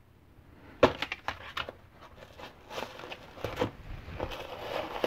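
Clicks, taps and rattles of small hard parts and a container being handled on a bench. They start about a second in with a sharp click and go on as a busy, uneven run of knocks, ending on another sharp click.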